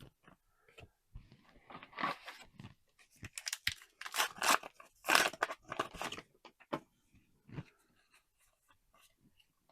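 Trading card booster pack being handled: irregular crinkling and tearing of the foil pack wrapper and rustling of cards, clustered in the middle of the stretch and loudest a little past halfway, then a few faint ticks.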